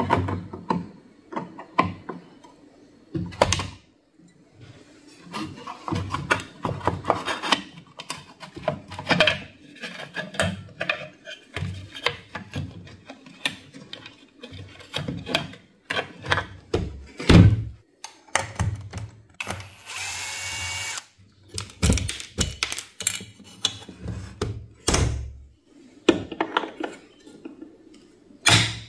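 Workbench handling sounds: repeated irregular knocks and clatter of tools and parts. About twenty seconds in, a small power tool runs once for about a second and a half with a slightly rising whine.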